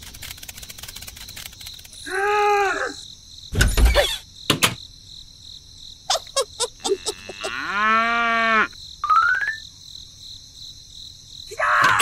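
Steady high insect chirring, with two drawn-out pitched calls that rise and fall, one about two seconds in and a deeper one about eight seconds in. Sharp clicks come between them, and a short rising tone about nine seconds in.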